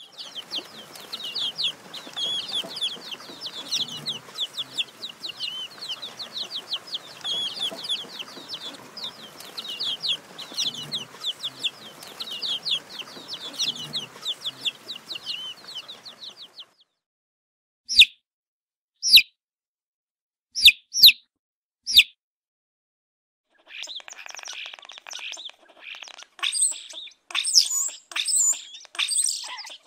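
Domestic chicken chicks peeping: a rapid, continuous run of short, high, falling cheeps for about the first sixteen seconds. It breaks into silence with five or six single loud peeps, then dense peeping starts again for the last several seconds.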